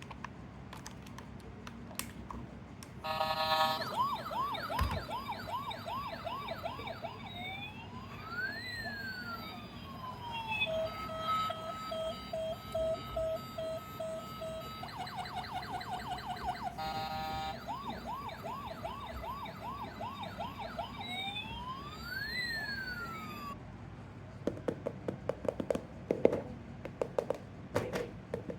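Electronic toy police-car siren cycling through patterns: a fast repeating yelp, slow rising and falling wails that overlap, and a pulsing steady tone, lasting about twenty seconds before cutting off. Scattered clicks and knocks come just before it and after it stops.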